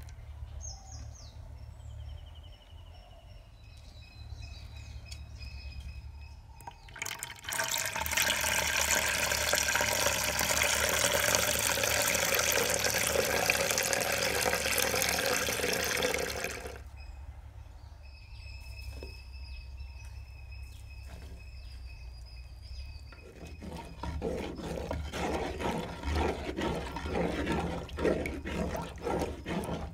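Thick coconut milk poured in a steady stream into a clay cooking pot, starting about seven seconds in and running for about nine seconds. Near the end, a wooden spoon stirs the liquid in the clay pot with a quick run of irregular scrapes and sloshes.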